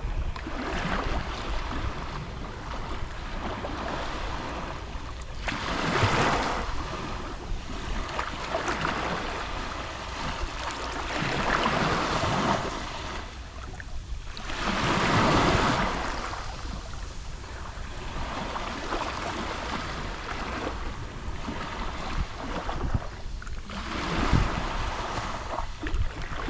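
Gentle Mediterranean waves lapping on the shore, each small wave swelling in a wash of surf every few seconds, with the biggest surges about six and fifteen seconds in, over a steady low rumble of wind on the microphone.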